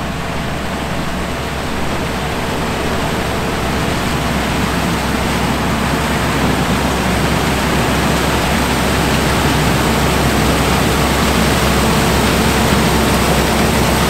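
Farm harvest machinery running at work: a steady loud rush of noise over a low engine hum, growing a little louder through the stretch.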